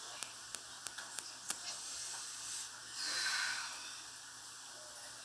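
A few light clicks of utensils on a plate at the counter during the first second and a half, then a short hiss about three seconds in.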